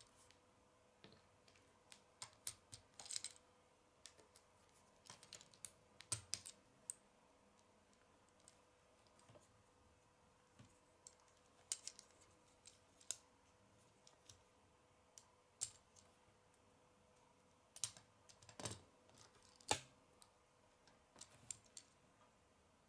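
Lego bricks handled and pressed together, giving scattered small plastic clicks and snaps that come in clusters, the loudest a few seconds before the end.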